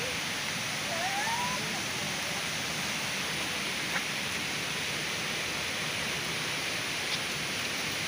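Steady, even rush of falling water from a waterfall nearby, with a faint short rising call about a second in and a single tick near the middle.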